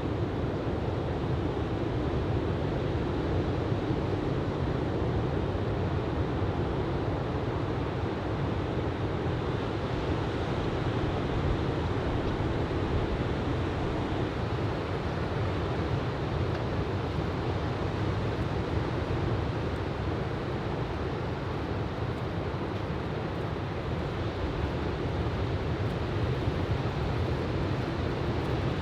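Steady rush of ocean surf breaking on a beach under a shoulder-high typhoon swell, mixed with wind noise on the microphone.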